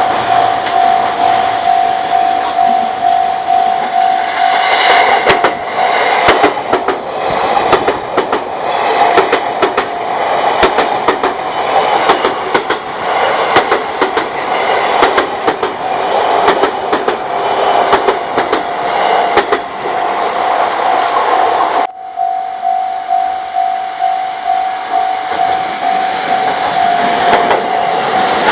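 Japanese level crossing's warning bell ringing as a steady pulsing tone, then a JR East train passing over the crossing, with many sharp wheel clicks over the rail joints. About two thirds of the way through the sound cuts abruptly and the crossing bell is heard ringing again.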